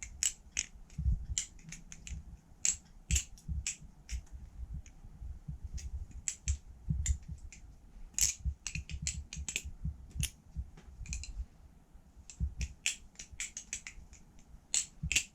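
Balisong (butterfly knife) being flipped: many irregular sharp clicks and clacks as the handles swing and strike the blade's tang and each other, with low handling thuds underneath.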